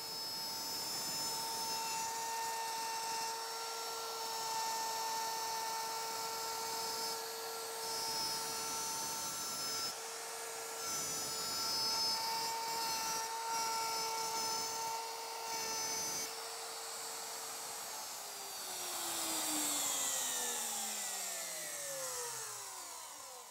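Porter-Cable plunge router running at full speed with a steady high whine as it cuts a circular groove in a small wooden workpiece. About eighteen seconds in, it is switched off and winds down, its pitch falling away.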